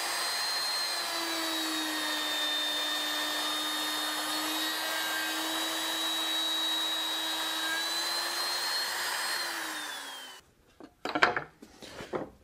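Router running with a steady high whine as a 1/2-inch pattern bit cuts a shallow slot in maple along a template. About ten seconds in it is switched off and spins down, followed by a few knocks as it is set down on the bench.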